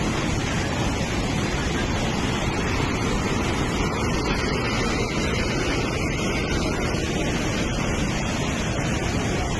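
Water rushing out of a dam's relief valve under pressure: a steady, dense roar of noise that does not let up, heaviest in the low end.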